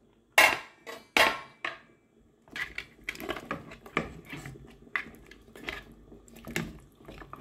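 Two sharp metal clanks from a stainless-steel pot and its lid, then a spatula stirring trotters in hot water inside the pot, with irregular scrapes and light clinks against the pot.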